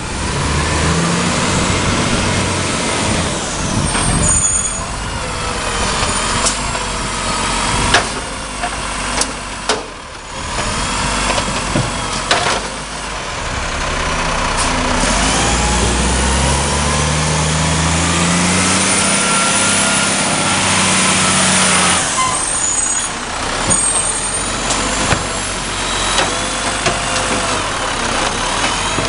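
Side-loading garbage truck working at the kerb: its diesel engine runs and revs up steadily for several seconds to drive the hydraulic lifting arm, then drops back suddenly, with a few sharp knocks of the bin and the arm and brief high squeals and hisses of the air brakes.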